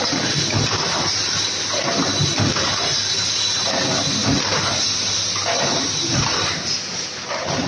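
Automatic tin-box production machinery running: a steady hiss and a thin high whine under repeated clanks of the forming machine, about one to two a second.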